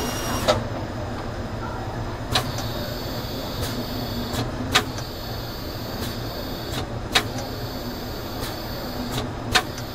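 JY-2025 automatic lathe with cross-drilling attachment and dividing device running its cycle: a steady mechanical hum with a sharp click about every two and a half seconds and fainter clicks between, and a high whine that drops out near the start and returns a couple of seconds later.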